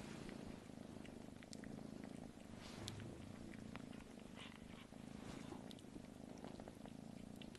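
Tabby kitten purring softly while its head is stroked, the purr swelling and easing with its breaths about once a second, with faint scattered clicks.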